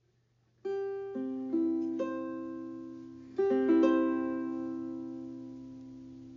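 Ukulele plucked in a short phrase: single notes, then a few more struck together about three and a half seconds in, left to ring and fading slowly.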